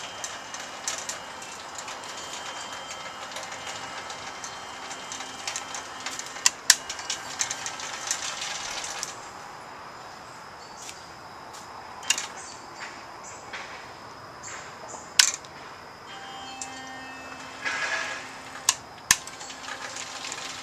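The 12-volt DC motors of a homemade bandsaw mill's dual power feed, driving the saw head along the track by roller chain and sprockets: a steady motor whine with chain rattle. It gets quieter about nine seconds in, and there are a few sharp clicks and knocks.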